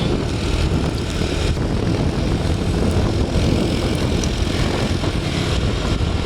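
Tour bus engine droning steadily, with road and wind noise and no horn.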